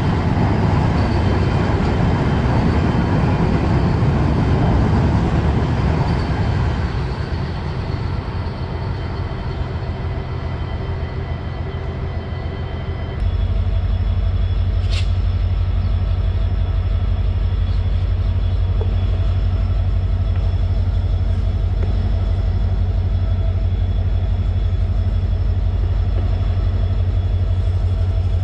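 Passenger train running, a dense rumble from the wheels and track. About halfway through, the sound switches abruptly to a steadier, louder low hum with a few fixed tones. A brief sharp sound comes a couple of seconds after that.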